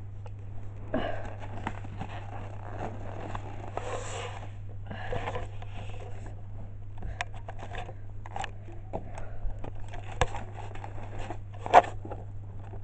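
Handling noise close to the microphone: irregular rustling, scraping and clicks, over a steady low hum, with a sharp knock near the end.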